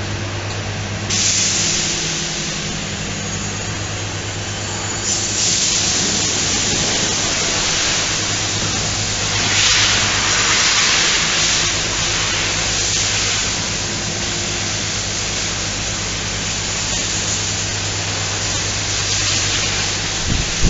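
Factory background noise: a steady low electrical hum under a loud hiss that swells and fades several times, strongest about halfway through.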